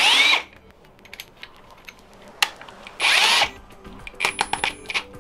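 Ryobi R18PDBL-0 18V ONE+ brushless drill's motor run in two short bursts about three seconds apart. Each is a whir that rises and falls in pitch within half a second, with light clicks in between.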